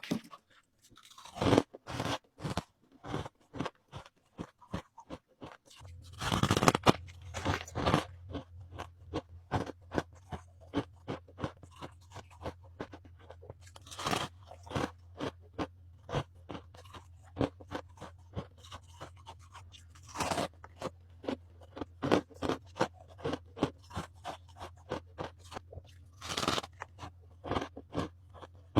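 Ice being bitten and crunched between teeth: a hard bite every six seconds or so, each followed by rapid runs of crunching as the pieces are chewed.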